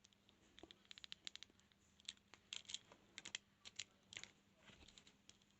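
Faint, irregular metallic clicking and scratching as a lock pick and tension wrench work the pins of a transparent practice padlock.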